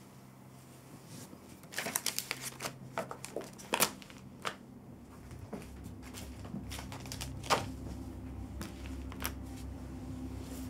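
A quick run of clicks and rustles, like small objects being handled, with a few more single clicks later. A low steady hum comes in after about five seconds.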